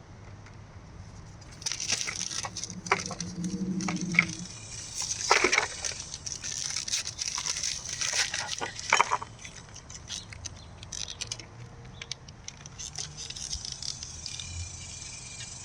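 Plastic and cardboard packaging of a new 2825 license plate bulb pack being opened: crinkling and rustling with small sharp clicks, busiest for the first nine seconds or so, then sparser handling noises.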